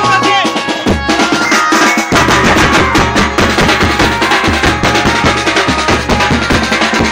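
Maharashtrian banjo band playing: rapid snare-drum strokes and heavy bass-drum beats under a melody line, the bass drums coming in fully about two seconds in.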